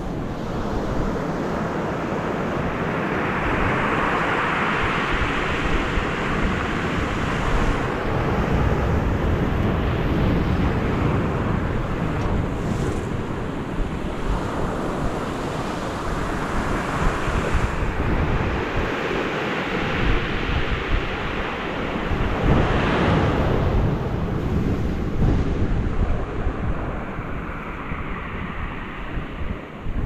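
Sea waves breaking against rocks along a beach, the surf swelling into a rush and ebbing again several times, each surge lasting a few seconds. Wind buffets the microphone underneath.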